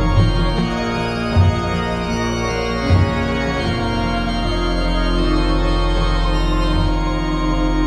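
Background music: sustained chords, with low drum hits about every second and a half over the first three seconds.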